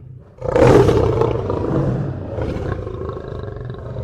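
A lion roaring: one long, rough roar that starts about half a second in and slowly fades away.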